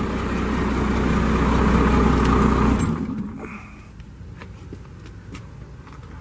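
12-valve Cummins inline-six diesel in a 1988 Ford L700 truck running steadily, then shut off about three seconds in, its sound dying away over about a second.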